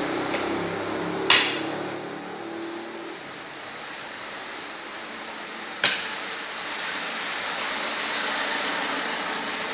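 Two sharp clacks at a makruk game board, about four and a half seconds apart, the first the louder, over a steady hum of room noise.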